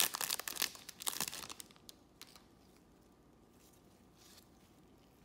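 Trading-card pack wrapper crinkling as it is torn and pulled off the cards, stopping about a second and a half in; after that only a few faint taps of the cards being handled.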